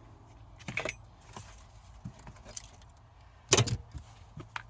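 Scattered clinks and rattles of small metal parts and tools being handled while rummaging for a loose bolt, the loudest a short clatter about three and a half seconds in.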